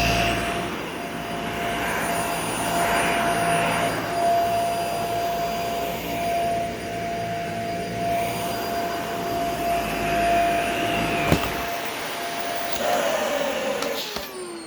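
Dyson Small Ball upright vacuum cleaner running on carpet with a steady motor whine and suction noise. About 11 seconds in there is a click as it is switched off, and the whine falls in pitch as the motor spins down.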